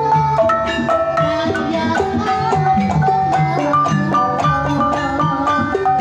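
Javanese gamelan playing a Banyumasan tayub piece: bronze bonang kettle gongs struck in quick, continuous runs of ringing notes over other metallophones and low pulses.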